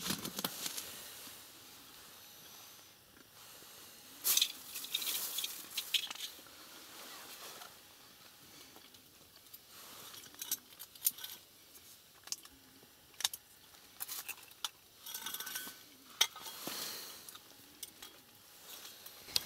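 Hands handling small winter ice-fishing rods and gear on crushed ice: scattered light clicks, clinks and scraping rustles, busiest about four to six seconds in.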